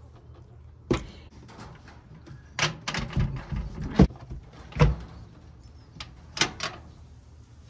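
Wooden chicken-coop door panel and its latch being handled: a series of sharp knocks and clacks, eight or so spread unevenly, the loudest about four and five seconds in.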